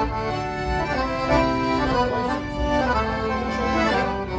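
Accordions playing an instrumental passage of a gaúcho waltz, with held notes and chords that change about once a second.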